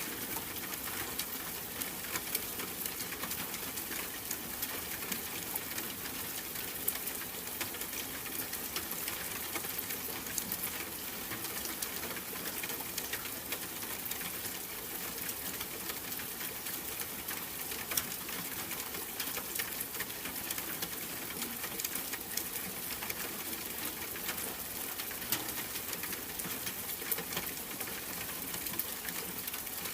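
Steady rain falling, an even patter of drops with many small, sharp ticks scattered through it.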